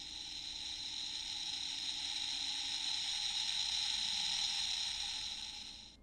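CSM V Buckle toy belt playing its electronic sound effect of Imperer's advent card deck shattering and evaporating away: a high hiss that swells gradually and cuts off suddenly near the end.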